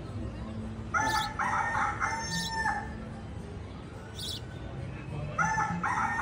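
A rooster crow played twice from an animatronic bird figure on a themed building, the two crows nearly identical and about four and a half seconds apart, as in a looped recording.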